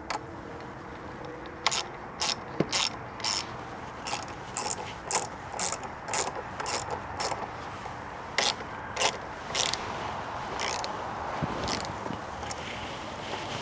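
Hand socket ratchet being worked in short repeated strokes, each swing a quick rasp of pawl clicks, about two a second with brief pauses, during wheel work on a motorcycle.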